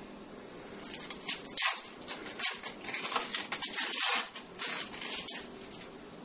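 Thin plastic wrappers of individually wrapped American cheese slices crinkling and rustling as they are peeled open, in irregular bursts from about a second in until shortly before the end.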